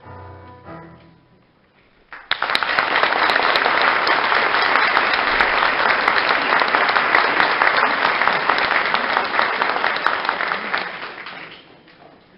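A choir's last sung chord dies away, then about two seconds in an audience breaks into loud applause that holds for about nine seconds and fades near the end.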